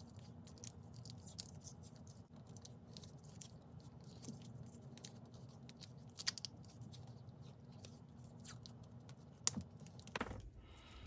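Black tape being pulled off its roll and wrapped around a two-cell 18650 battery pack: faint crackling and scratching, with a sharper click about six seconds in and another near the end.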